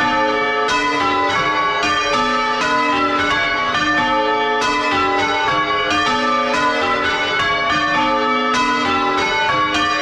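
A ring of six church bells with a tenor of about 9 cwt, change-rung full circle and heard at close range inside the belfry. The strikes follow one another at an even pace, each bell's note ringing on under the next.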